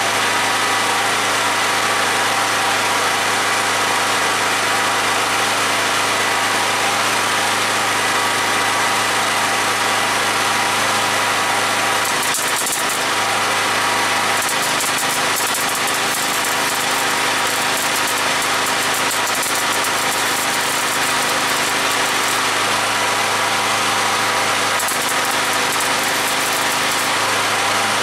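Electric arc welder running a long weld on car floor-pan steel: a continuous buzzing crackle with a steady hum under it, changing a little in tone a few times.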